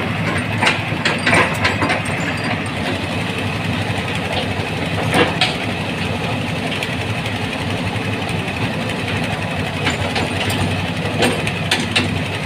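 Hitachi Zaxis 210F-5G excavator's diesel engine running steadily, with a few sharp metallic clanks from the machine, about five of them.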